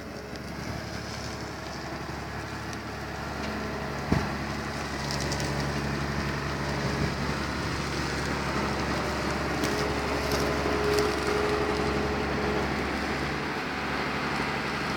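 Deutz-Fahr Topliner 4075 combine harvester running: a steady engine hum with a crackly rattling noise over it, growing slightly louder over the first half. There is one sharp knock about four seconds in.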